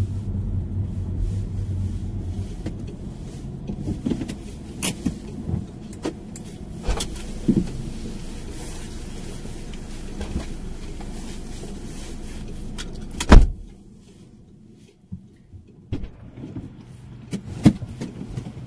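Car engine running, heard from inside the cabin, with scattered clicks and knocks. About thirteen seconds in comes a loud thump and the engine noise stops, leaving a much quieter cabin with a few light knocks.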